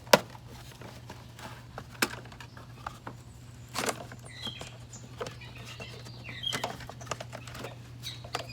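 Scattered clicks and knocks of hands handling parts and trim inside a car's dashboard, with a few faint high squeaks and a steady low hum underneath. The loudest click comes right at the start.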